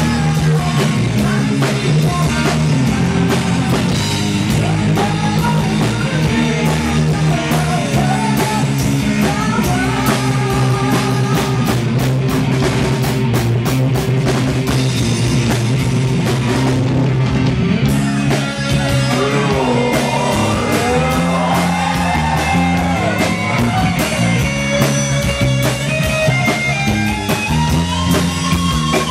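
Live rock band playing loud: electric guitar and drum kit, with a man singing lead through a microphone, his sung melody clearest in the second half.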